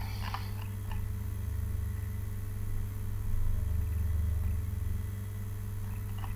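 Steady low electrical hum of background noise, with a few faint clicks in the first second.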